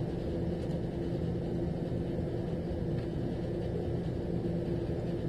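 Steady low mechanical hum of a running motor, even and unchanging throughout.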